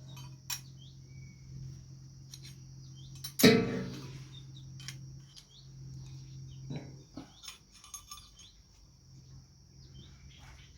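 Light metal clinks and taps from handling metal parts, with one louder clank that rings briefly about three and a half seconds in, over a steady low hum that stops about two-thirds of the way through.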